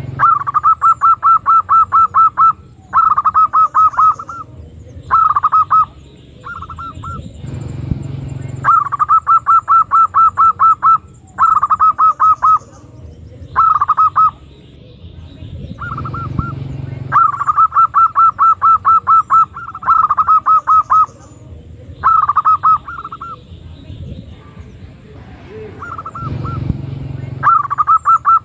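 Female zebra dove (perkutut) calling: bursts of rapid, evenly spaced notes at about five or six a second, each burst lasting one to two seconds, repeated again and again with short pauses between.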